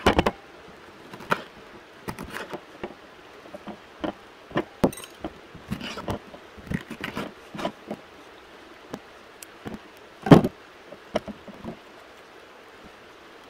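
Kitchen knife cutting a yellow capsicum on a wooden cutting board: irregular knocks and clicks of the blade on the board, with one sharp knock about ten seconds in, the loudest of them.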